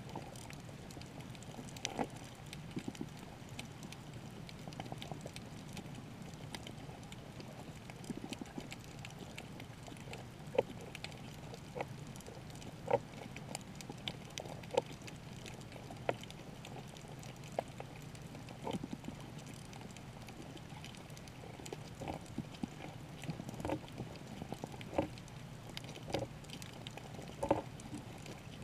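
Underwater ambience in shallow water over a coral reef: a steady, muffled low hum with irregular short clicks and pops scattered throughout, coming more often in the second half.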